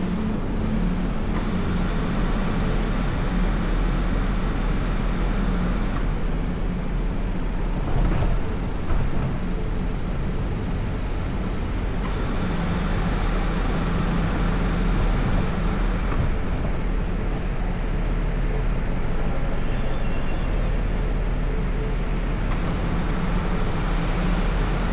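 Car driving through city traffic: a steady low engine and road rumble, with a few brief knocks, two of them about eight and nine seconds in.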